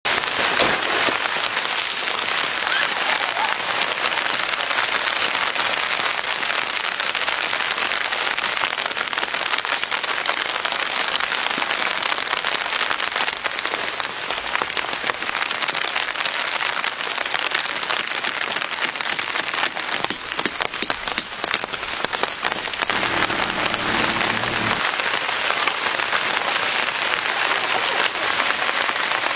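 Steady rain pattering on the fabric of a pop-up hub tent: a dense, even hiss of drops with many small ticks. A brief low hum joins it about three-quarters of the way through.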